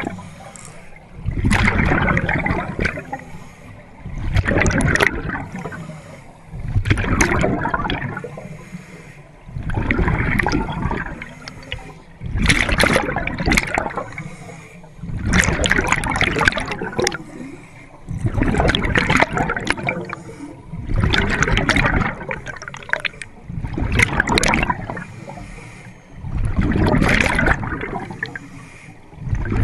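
Scuba regulator breathing recorded underwater: bursts of exhaled bubbles rushing and gurgling past the camera, repeating about every two to three seconds with the diver's breaths.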